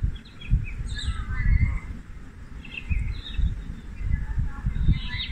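Irregular low rumbling gusts of wind buffeting the microphone, with scattered short high bird chirps over it.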